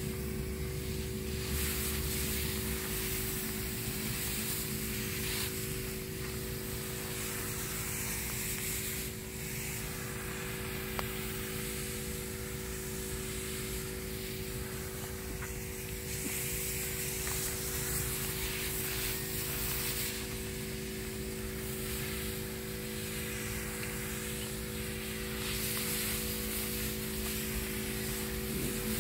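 Motorised high-pressure sprayer running steadily, its engine giving a constant hum, while the spray gun hisses and the hiss grows louder for stretches.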